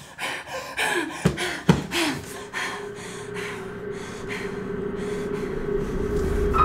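A person's breathy gasps with two sharp knocks close together, then a steady droning tone that slowly swells.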